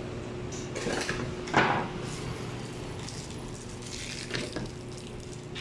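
Hands rummaging through a bag of tools: small clinks and rustles, with one sharp clack about a second and a half in.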